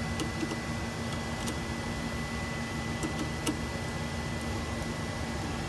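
Scattered light metallic clicks of a screwdriver loosening a screw on a UPS battery terminal block, the sharpest about three and a half seconds in, over a steady electrical hum with a constant whine.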